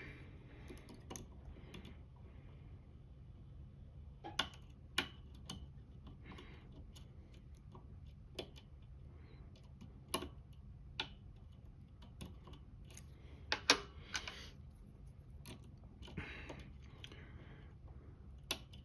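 Faint, irregular metallic clicks and ticks of a lock pick and tension wrench working the pins inside a Lucznik pin-tumbler lock, with a few louder clicks about two-thirds of the way through.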